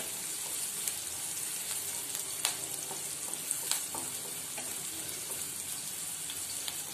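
Chopped onion sizzling in hot oil in a non-stick kadhai on a medium gas flame, stirred with a wooden spatula: a steady high hiss with a few sharp clicks.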